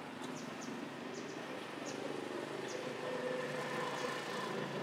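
Outdoor background: a steady low hum with short, high chirps repeating at uneven intervals.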